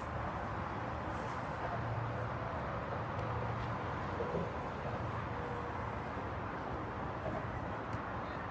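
Steady outdoor background noise from an open playing field, an even rumble and hiss with no distinct events, with a few faint distant calls from players.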